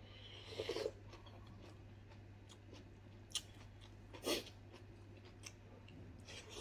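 A person eating: a soft slurp of broth from a coconut-shell bowl under a second in, then quiet chewing and mouth sounds with small clicks and a louder knock about four seconds in. A steady low hum runs underneath.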